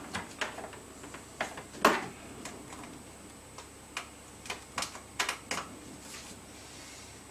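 Irregular plastic and metal clicks and taps as an HDMI cable is handled and plugged into the test rig, a few sharper knocks about two seconds in and again around five seconds in.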